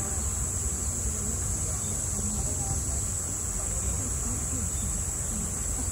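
A chorus of summer cicadas, a steady high-pitched shrill that never lets up, with faint voices and a low rumble underneath.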